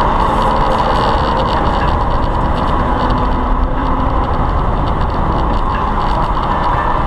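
Car accelerating hard at highway speed, heard from inside the cabin: a steady, loud roar of engine, tyres and wind noise.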